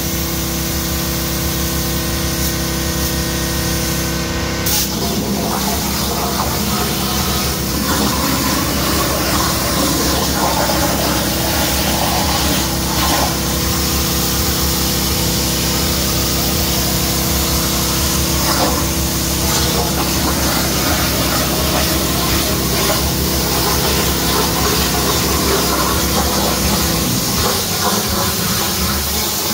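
A motor or engine running steadily, with a hum and a hiss; the hum shifts about five seconds in and drops near the end.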